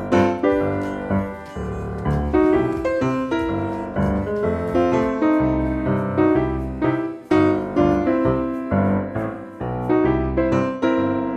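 Background piano music: melody and bass notes struck in a steady rhythm.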